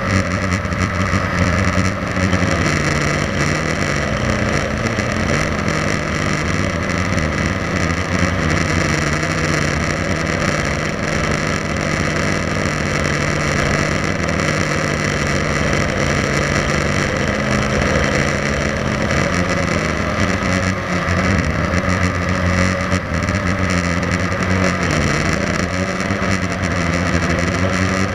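Blade 350 QX3 quadcopter's electric motors and propellers buzzing steadily, heard from the onboard camera, the pitch drifting up and down as the throttle changes.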